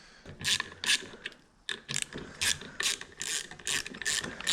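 Hand ratchet wrench clicking through repeated back-strokes, about three clicks a second, as the clutch bolts are loosened during a motorcycle engine teardown.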